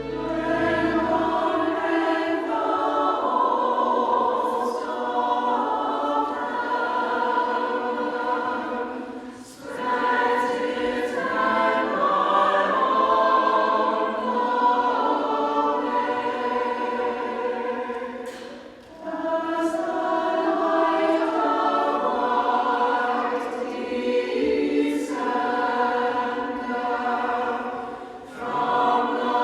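Choir singing sacred music in long phrases, with a short break between phrases about every nine seconds.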